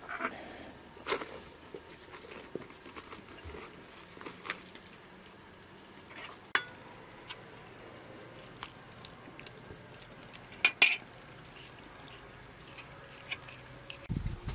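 Small knife cutting pickled gherkins held in the hand: faint, sparse cuts with a few scattered sharp clicks, the loudest a quick double click about eleven seconds in.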